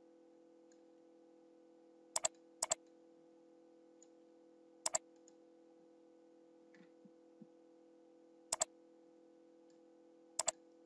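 Computer mouse button clicked five times at irregular intervals, each click a sharp double tick of press and release, over a steady low hum.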